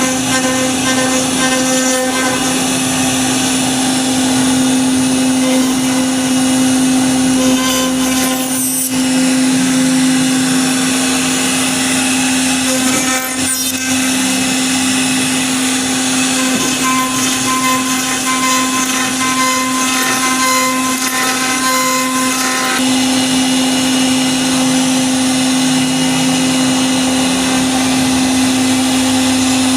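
CNC router spindle running steadily while its bit carves a wooden door panel: a constant high hum with cutting noise over it, briefly broken twice.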